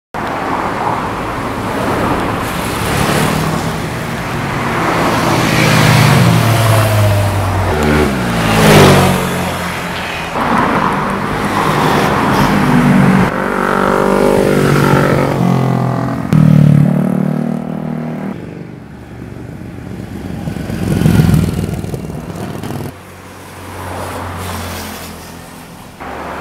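Several motorcycles passing one after another, their engines revving with pitch rising and falling as each goes by. The loudest passes come about nine seconds in and again just past sixteen seconds.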